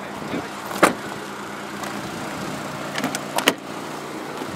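The 2001 Acura 1.7 EL's 1.7-litre four-cylinder engine idling with a steady hum. A sharp click comes about a second in, and a few more clicks and knocks come about three seconds in.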